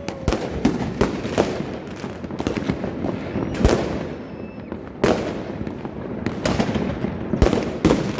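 A quick, irregular string of sharp bangs and pops, about two a second, some with an echoing tail, the loudest a little under four seconds in and a short lull just after.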